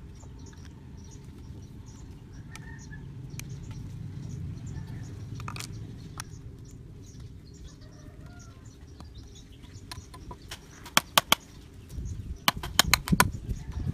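Hard plastic clicks and clacks of blue PVC pipe sections and joints being pushed together and handled: a single click about halfway, a pair later, and a quick run of clacks near the end. Chickens cluck faintly in the background.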